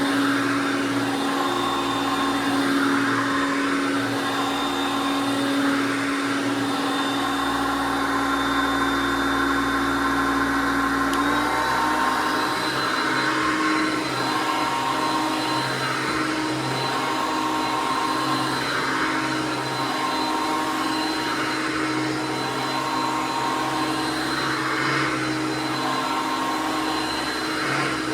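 1979 Hoover Concept One U4205 vacuum cleaner running steadily, a motor hum over rushing air. Roughly halfway through, its pitch steps up slightly and then holds.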